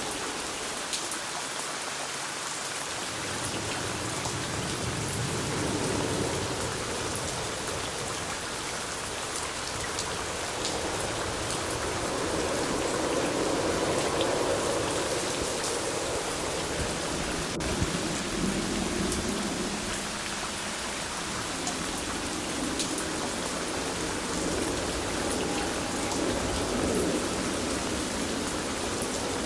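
Steady rain falling on a surface, with individual drops ticking through the hiss and a low rumble that swells and fades slowly.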